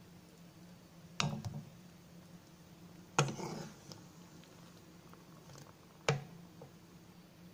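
A spatula knocking against a nonstick pan three times as boiled apple wedges are scooped out, each knock followed by a short clatter, over a low steady hum.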